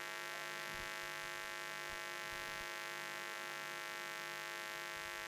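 Steady electrical mains hum, a buzzy stack of evenly spaced tones that holds unchanged throughout.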